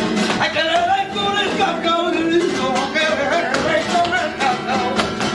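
Live flamenco cante: a male cantaor singing a long, wavering, ornamented line over flamenco guitar, unamplified in a small room.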